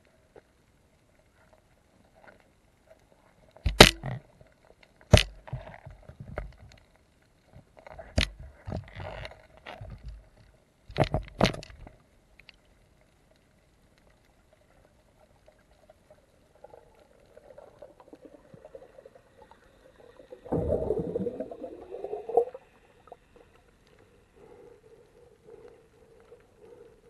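Underwater sound picked up by a camera in a waterproof housing during an octopus catch: several sharp knocks and clicks in the first twelve seconds, then a louder rushing burst of water noise about twenty seconds in.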